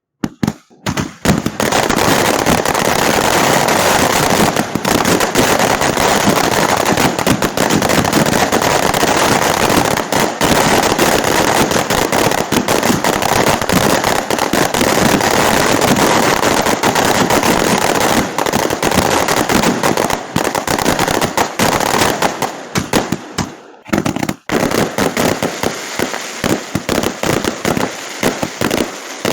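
Fireworks going off as a dense, rapid crackle of many overlapping bangs, like a long string of firecrackers. Near 24 s it briefly drops away, then goes on as a run of separate, sharper cracks.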